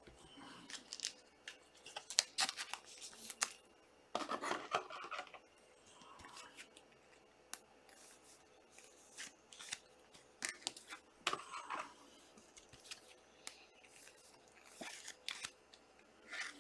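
Trading cards and their foil packaging being handled at a table: scattered light clicks, snips and rustles, with longer crinkling bursts about four seconds in and again around eleven seconds.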